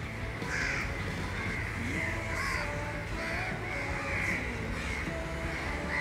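Crows cawing over and over, a call about every second or so, with soft background music underneath.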